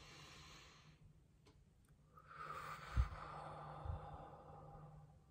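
A woman breathing audibly: a short breath in at the start, then about two seconds in a longer breath out, with two soft low thumps during it.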